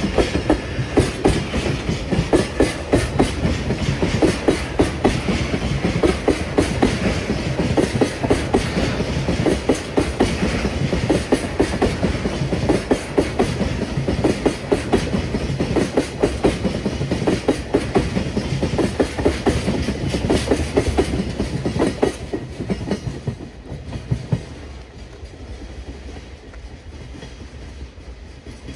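Freight train hauled by a JR Freight EH200 electric locomotive passing at speed, its wagon wheels clattering rapidly over rail joints. The clatter ends abruptly about 23 seconds in, leaving a fainter noise as the train moves off.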